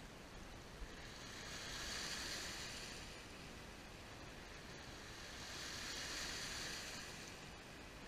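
Small waves washing in over a pebble shore, the hiss of surf swelling twice as each wave runs up the stones and drains back.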